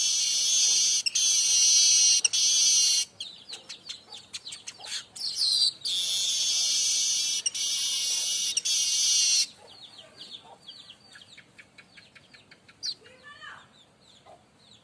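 Streaked weaver (manyar kembang) singing: two long, loud, buzzy wheezing phrases, each about three to four seconds, with soft chattering and ticking notes between them and a few quieter chirps in the last few seconds.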